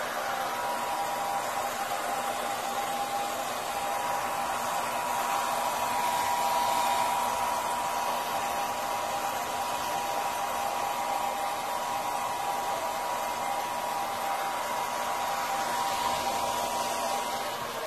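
Handheld hair dryer running steadily, blowing air with a steady whine over the noise of the airflow.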